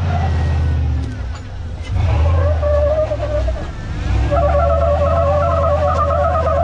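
Jeep TJ's engine running at low revs as it crawls over concrete culvert pipes, with a wavering squeal over it that comes and goes.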